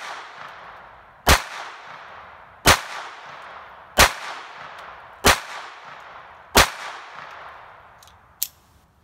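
Astra Cub .22 Short pocket pistol fired five times at an even pace, about one shot every 1.3 seconds, each sharp crack followed by a short echoing tail; these finish its six-round magazine. A small click near the end.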